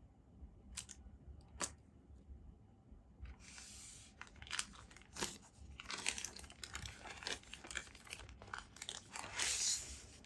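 Packaging being handled: plastic wrapping crinkling and tearing, mixed with scattered clicks and taps of small parts, with the loudest rustle near the end.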